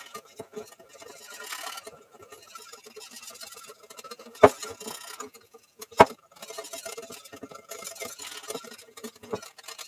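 A wire whisk beating flour into cream and milk in a bowl to a smooth, lump-free batter: quick light clicking and scraping of the wires against the bowl, with two sharp knocks about four and a half and six seconds in.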